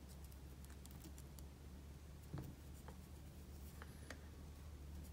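Near silence: a faint low hum with scattered light clicks and rustles of fingers handling a rabbit fur strip and tying thread on a hook in a fly-tying vise, with one slightly louder tap about two and a half seconds in.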